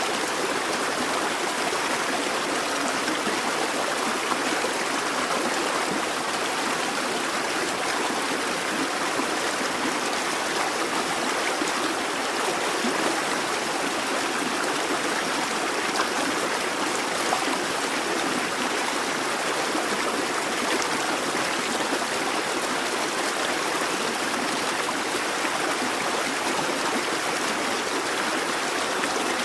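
A busy babbling brook: water running and splashing steadily over stones.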